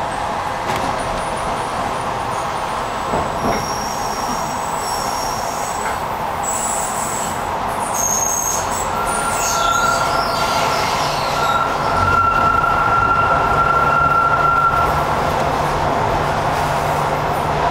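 Docklands Light Railway train running, heard from on board, with its wheels squealing in high tones a few seconds in and a steady whine later.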